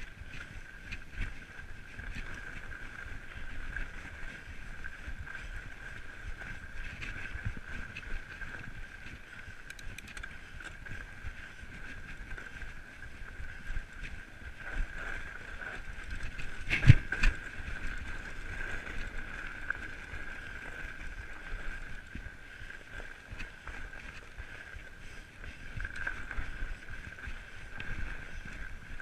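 A fat bike riding a packed-snow trail: its tyres and frame give a steady rolling noise with small bumps and rattles over a constant high hum, and one sharp knock about seventeen seconds in.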